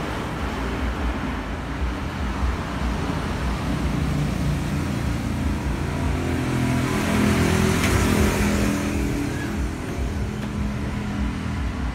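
Steady rumble of a motor vehicle engine with road noise, growing louder past the middle and then easing off.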